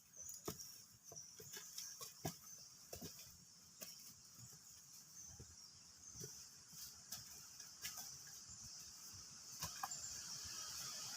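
Faint, steady high-pitched chorus of forest insects, growing slightly louder near the end, with scattered small clicks and knocks throughout.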